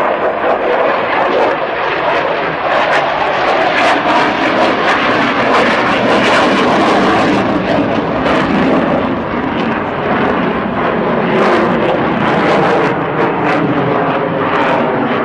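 F-16 Fighting Falcon's single jet engine in a loud, continuous roar during a flying display, its pitch sliding as the aircraft moves.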